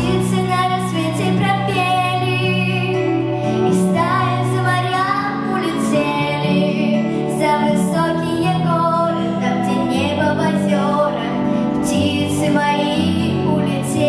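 A girl singing solo into a handheld microphone over an instrumental accompaniment with held low notes.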